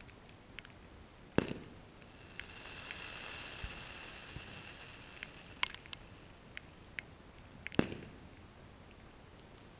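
Distant aerial fireworks: two sharp bangs about six seconds apart, the first about a second in and the second near the end. Fainter pops and crackles fall between them, over a faint high-pitched hiss that swells in the middle.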